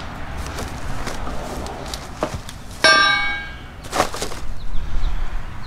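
A sharp metallic clang about halfway through that rings on for most of a second, as a metal part of the mini bike or a tool is knocked. A couple of duller knocks and thuds follow as the bike and its wood-and-cardboard crate packing are shifted.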